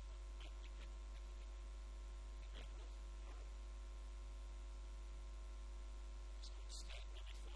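Steady low electrical mains hum, with a few faint brief noises over it.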